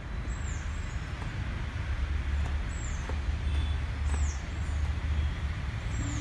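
Outdoor background noise: a steady low rumble with a few short, faint high chirps.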